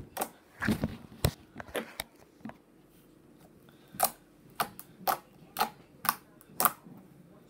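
Purple slime being pressed and poked with the fingers, giving a string of sharp clicking pops as air is squeezed out. They come irregularly at first, then about two a second in the second half.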